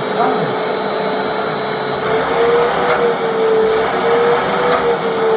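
Vacuum cleaner running: a steady motor whine over rushing air, its pitch wavering slightly in the second half.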